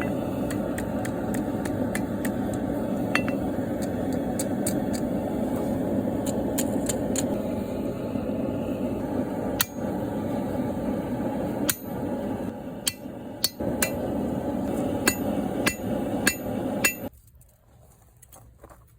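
Blacksmith's hammer striking hot steel on an anvil, spreading the end of the bar into a fishtail with the cross peen: a run of sharp ringing blows, sparser in the second half, over a steady rushing noise that cuts off about seventeen seconds in.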